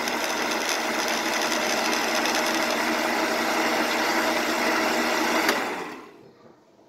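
Electric blender motor running steadily at speed, blending mango pulp with milk into juice in a capped glass jar. About five and a half seconds in, it is switched off with a click and the motor spins down.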